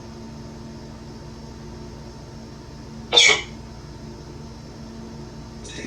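A steady low hum throughout, with a single short cough or throat-clearing sound about three seconds in.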